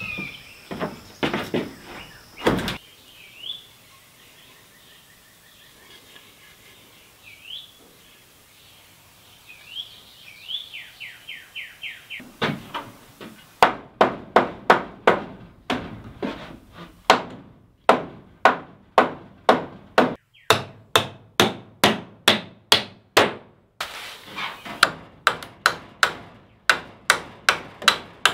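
A Hardcore Hammers survival hatchet used by its poll as a hammer, driving nails into wooden wall studs. A few knocks come first, then a quiet stretch with birds chirping. From about halfway through comes a long run of rapid, even strikes, two or three a second, with short pauses.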